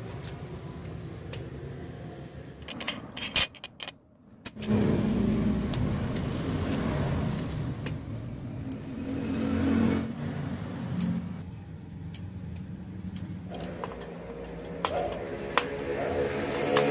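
Light clicks and knocks of a copier fuser unit's plastic and metal parts being handled, over a steady low rumble. The sound drops out briefly about four seconds in.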